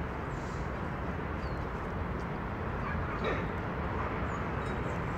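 Steady outdoor background noise with a few faint bird chirps, and a brief faint dog yelp about three seconds in as the dogs play.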